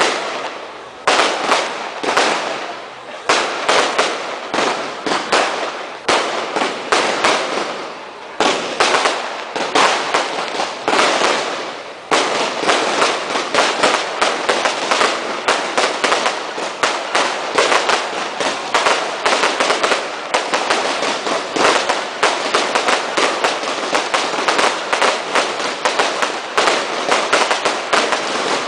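Dense barrage of category 2 consumer fireworks: rapid bangs and crackling. There are a few brief dips in the first twelve seconds, and after that the firing is unbroken.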